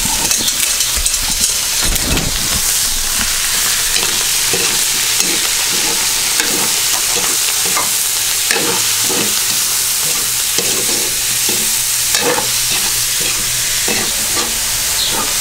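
Minced shrimp and pork pieces frying in oil in a wok, sizzling steadily, while a metal spatula stirs and scrapes across the pan in repeated strokes.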